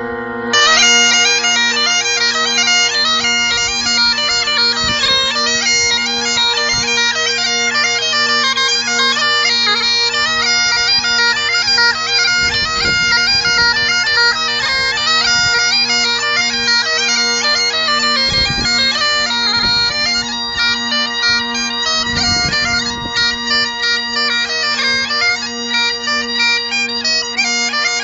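Great Highland bagpipes playing a tune: the chanter melody comes in about half a second in over the steady drones.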